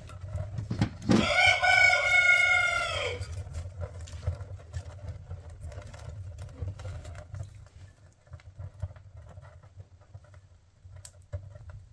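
A rooster crows once, about a second in: one long, loud crow of about two seconds that rises at the start and drops away at the end.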